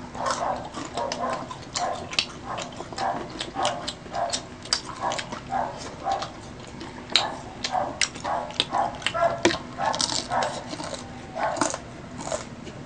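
Close-miked chewing of fried street food such as crispy chicken skin and fishballs: crisp crunches and wet mouth sounds in a quick chewing rhythm, about two to three chews a second.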